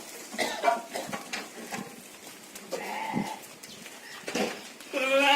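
Sheep bleating, several separate calls, the loudest a long wavering bleat near the end.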